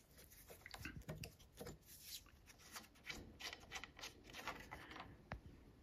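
Faint, scattered clicks and rubbing as a hex key and fingers unscrew the crank-arm preload cap on a Wahoo KICKR Bike.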